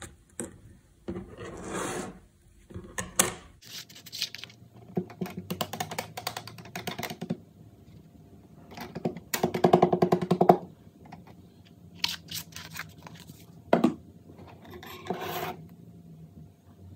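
Handling noises of thin laser-cut wooden craft pieces on a wooden tabletop: scratching, rubbing and small clicks and knocks, with a longer buzzy rasp about nine to ten and a half seconds in and a sharp click near the fourteenth second.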